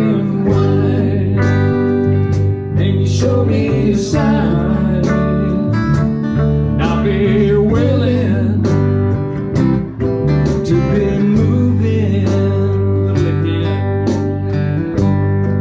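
Live band music: electric and acoustic guitars playing a song over a steady beat, with a man singing.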